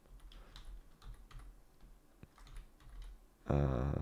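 Light computer keyboard typing: scattered soft key clicks as shortcuts are entered. Near the end, a brief steady hummed voice sound.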